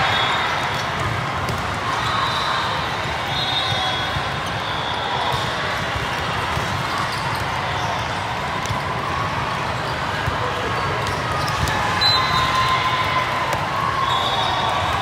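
Volleyball hall ambience: many voices chattering and calling, with balls thumping on the courts and short high-pitched squeaks now and then.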